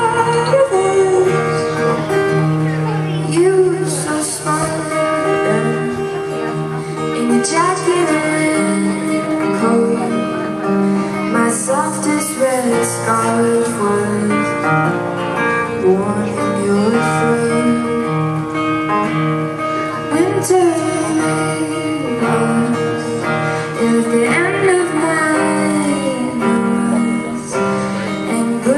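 A female singer performing a song live, her voice gliding between long held notes over her own guitar accompaniment.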